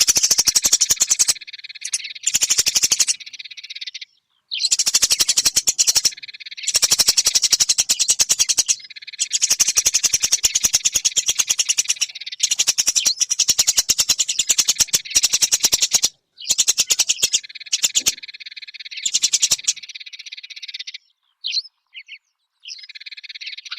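Eurasian tree sparrow chattering: bursts of rapid, high-pitched chirps lasting a second or two each, broken by short pauses, with only a few single chirps near the end.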